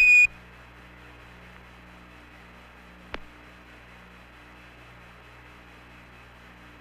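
A short, high Quindar tone beep at the start marks the end of a Houston transmission on the Apollo air-to-ground radio loop. It gives way to steady radio hiss and low hum, broken by a single sharp click about three seconds in.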